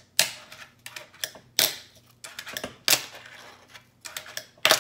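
DK fingerboard being popped and landed on a wooden desk: four main sharp clacks roughly a second and a half apart, each followed by a short rattle of the wheels rolling, with smaller clicks in between.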